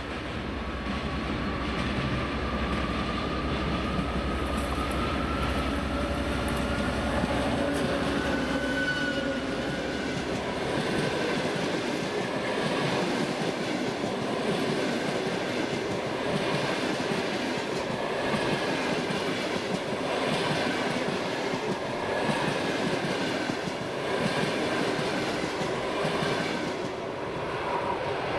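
A TEP70 diesel passenger locomotive passes at speed with its train. The engine's low rumble dominates for about the first ten seconds and then falls away. The coaches follow with a steady rolling noise and a regular clickety-clack of wheels over rail joints.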